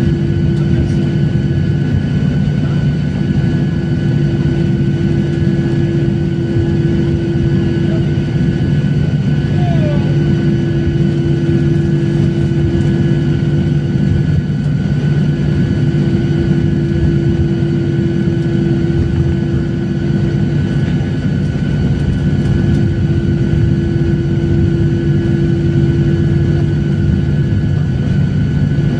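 Passenger jet cabin noise: the engines run at a steady low setting, an even loud rumble with several constant humming tones, while the airliner taxis after landing.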